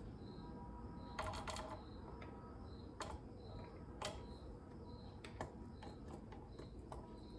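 Faint clicks and light metallic knocks of a carburetor and its linkage being handled and fitted onto an Evinrude Big Twin 40 outboard powerhead. There is a cluster of knocks about a second in and single clicks after it. A faint high chirp repeats about every three-quarters of a second throughout.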